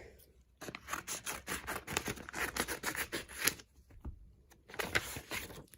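Rapid scratching and rustling of photocard packaging being handled by hand. It comes in two spells with a pause of about a second between them.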